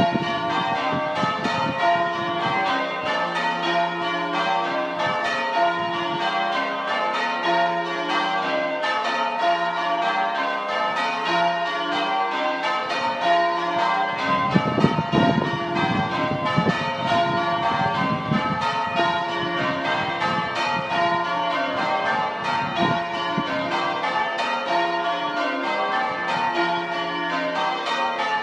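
A ring of six church bells in change ringing: five Pennington bells and a 13 cwt tenor in F cast by John Taylor & Co. in 1905, struck one after another in a rapid, even rhythm with their tones overlapping.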